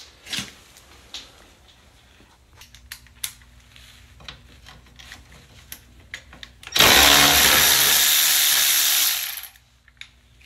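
Cordless ratchet running for about two and a half seconds, starting about seven seconds in, as it spins out a fuel-tank mounting bolt. Light clicks and taps of hand work come before it.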